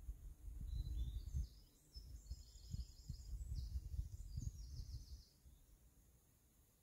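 Low gusty rumble of wind on the microphone, with a small bird singing short, rapid trills over it through the middle; the rumble eases off near the end.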